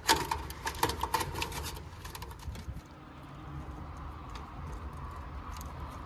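Small clicks and rattles of wire spade connectors and wiring being handled at an air-conditioner condenser's contactor during a contactor replacement. The clicks are busiest in the first two seconds and thin out after, over a steady low hum.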